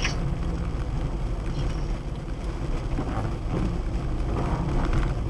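Wind and tyre noise heard inside a moving car on a rain-soaked road: a steady low rumble that grows slightly louder near the end.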